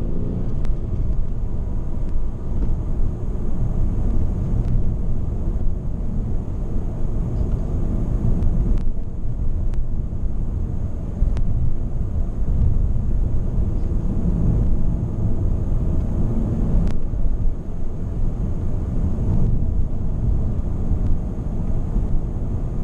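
Steady low road and tyre rumble inside the cabin of a Ford Mondeo ST220, its 3.0 V6 almost silent under the light load of normal driving. A few faint ticks sound over it.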